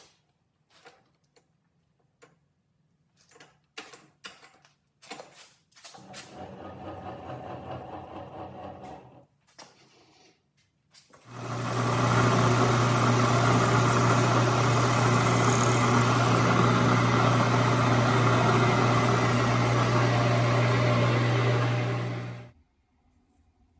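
A few clicks and knocks of parts being set in a machine vise, then a milling machine's spindle running steadily for about eleven seconds with a low hum and a high whine while drilling a 3/16-inch hole through half-inch steel plate, stopping abruptly near the end.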